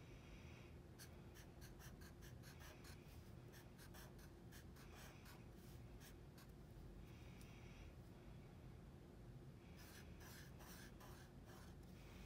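Faint squeaking and tapping of a black Sharpie marker drawing on paper, in many short strokes with brief pauses between them.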